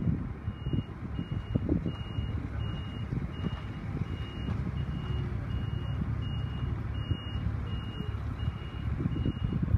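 Construction vehicle's reversing alarm: a steady single-pitched beep repeating about one and a half times a second, over a low engine rumble.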